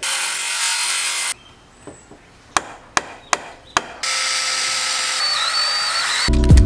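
A power tool runs briefly and cuts off, followed by several sharp taps. Then a cordless drill drives a wood screw into a white board for about two seconds, with a thin whine in its sound.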